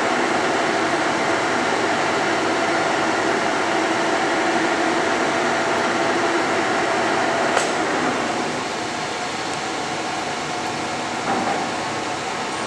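Leblond Regal 26 x 160 engine lathe running: a steady mechanical hum with a few held tones from the turning spindle and headstock gearing. A short click comes about seven and a half seconds in, and the sound is a little quieter after it.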